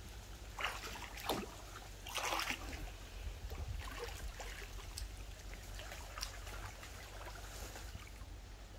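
Shallow paddy-field water splashing and trickling as people wade and work a fishing net by hand, with a few louder splashes in the first three seconds and smaller drips and splashes after.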